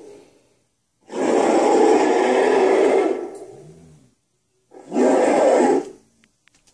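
King Kong roar sound effects played back from an mp3: a long roar starting about a second in and fading out, then a shorter roar near the end.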